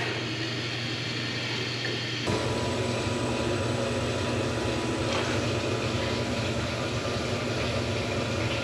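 Water rushing through the boiler feed pipe and newly installed water meter after the supply is turned back on, over a steady low mechanical hum; the rushing gets louder about two seconds in and then holds steady.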